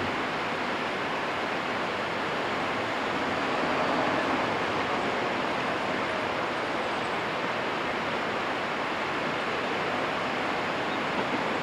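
Steady rushing of a shallow, fast-flowing river running over rapids and around bridge piers.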